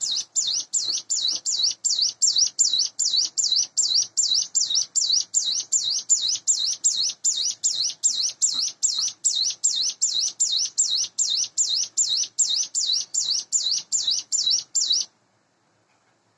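A captive ciblek gunung, a mountain prinia, singing a long unbroken run of rapid, evenly repeated high swooping notes, about three a second, which stops abruptly near the end.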